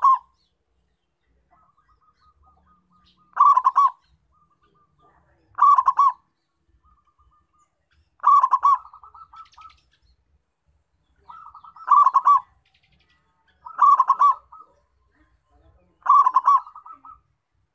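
Zebra dove (perkutut) cooing: a short, rapid bubbling phrase of coos, repeated six times about every two to three seconds, with fainter thin notes between the phrases.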